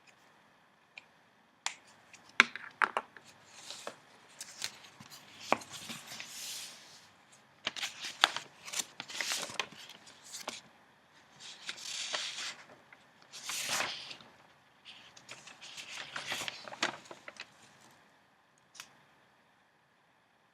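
Newspaper flier pages rustling and crinkling as they are handled and turned, in several bursts with sharp taps and clicks among them. It goes quiet near the end.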